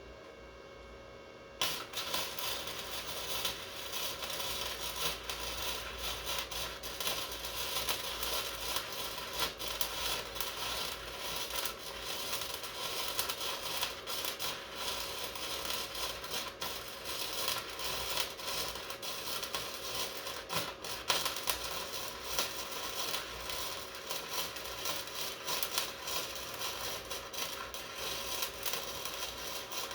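Wire-feed (MIG) welder arc striking about two seconds in, then running steadily as a continuous dense crackle while a practice bead is laid.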